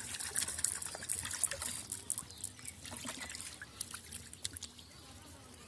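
Water trickling and splashing off a cast net as it is hauled out of a river, with caught fish splashing in the net. The irregular splashes come thick at first and thin out toward the end.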